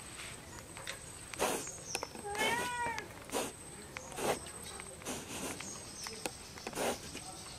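People eating rice with their hands from plates: brief repeated scrapes and rustles of fingers working the rice. About two and a half seconds in there is one short cry that rises and falls, like a cat's meow.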